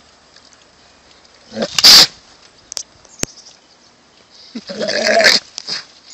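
A goat screaming twice: one short, harsh call about two seconds in and a longer one near the end.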